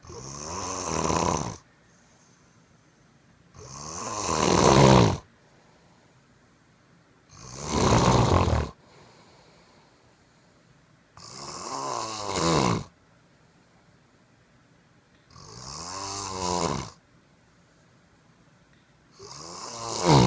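A sleeping man snoring: six loud snores, one about every four seconds, each lasting about a second and a half and growing louder before it stops, with quiet breathing pauses between them.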